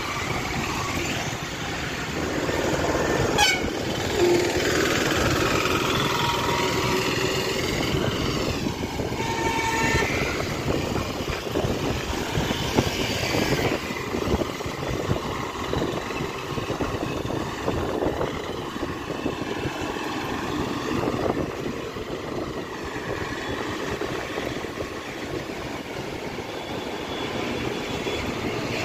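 Steady road and traffic noise heard while riding along a city street, with motorbikes, scooters and auto-rickshaws passing, and some pitched sounds rising and falling a few seconds in.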